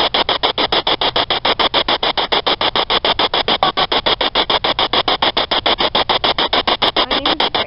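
Ghost-hunting radio sweep box (spirit box) scanning rapidly through radio stations: choppy static pulsing in a fast, even rhythm of about seven pulses a second.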